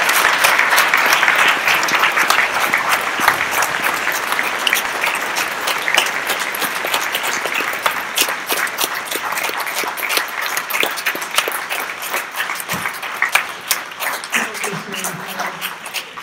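Audience applauding, loudest at the start and gradually thinning out into scattered claps near the end.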